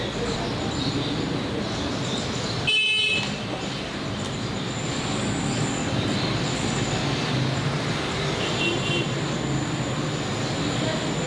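Busy street din with steady traffic noise, cut by a short, high-pitched vehicle horn toot about three seconds in and a fainter toot near the end.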